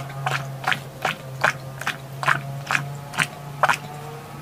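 A person gulping down a drink from a bottle, close to the microphone: about nine swallows in a steady rhythm, roughly two and a half a second, stopping shortly before the end. A steady low hum runs underneath.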